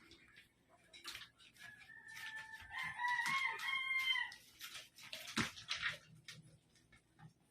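A rooster crowing once: one long call of several parts, starting about one and a half seconds in and lasting about two and a half seconds. Short clicks and knocks come before and after it, with a sharp knock near the middle.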